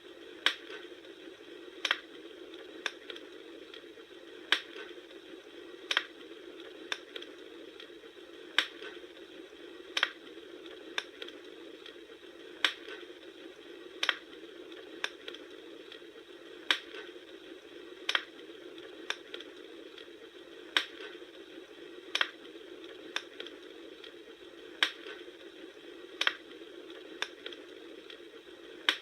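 Campfire crackling: a steady low hiss with sharp pops at a very even pace, a loud one about every second and a half and fainter ticks between.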